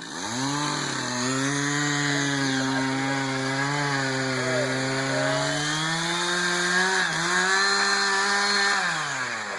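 Chainsaw throttled up to high revs, held at a steady high pitch while cutting into the tree, then let back down to idle near the end.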